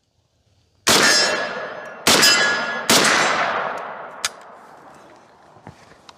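Three shots from a Ruger Deerfield semi-automatic .44 Remington Magnum carbine, the second a little over a second after the first and the third under a second after that. Each shot trails off in a long echo with a thin metallic ring from the steel targets being hit.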